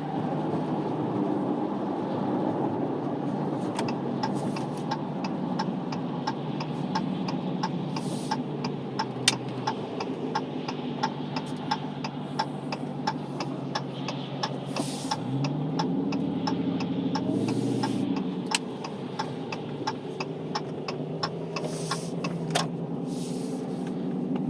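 The Hellcat Redeye's supercharged 6.2-litre Hemi V8 runs steadily while the car is driven. About fifteen seconds in, the revs rise, then ease off a few seconds later. Through the middle, a stream of sharp ticks runs over the engine.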